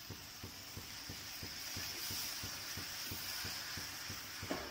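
A wooden spatula stirs oyster mushrooms into a sizzling masala in a clay pot, knocking and scraping against the pot about five or six times a second over a steady high sizzle.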